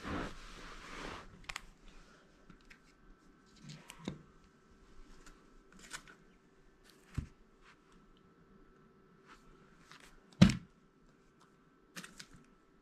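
Trading cards being handled: a rustle near the start, then scattered clicks and taps, the loudest about ten and a half seconds in.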